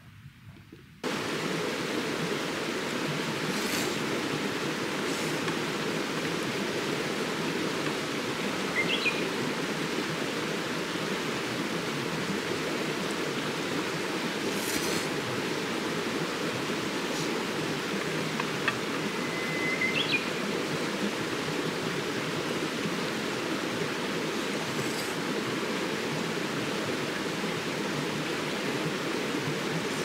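Mountain stream rushing steadily, the sound coming in suddenly about a second in. A bird chirps briefly twice over it.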